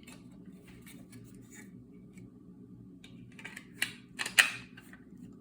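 Hard parts of a Vesta Sentinel launcher clicking and scraping as its mechanism is handled and fitted back into the outer shell: scattered light clicks, then a louder cluster of clacks about four seconds in.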